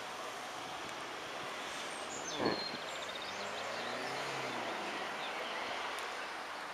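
Steady open-air background noise, with one brief sharp sound and a few high chirps about two and a half seconds in.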